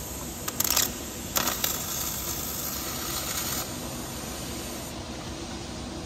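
Wire-fed MIG/MAG welding arc on an automatic orbital pipe-welding carriage (EWM Flex Track 45 Pro) running a seam on a steel pipe: a steady frying hiss with sharp spatter crackles about half a second in and again about a second and a half in. The hiss drops in level about three and a half seconds in.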